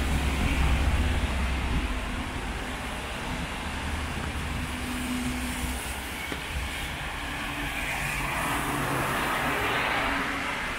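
City street traffic on wet roads: vehicle engines running, loudest with a low rumble in the first couple of seconds, and a rising and falling hiss of tyres near the end as a car passes.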